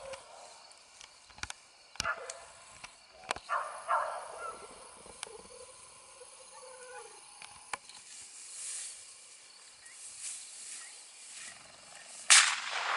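Rustling through tall grass with scattered light clicks, and a faint falling tone about halfway through. Near the end comes a single sudden loud burst that dies away over about a second.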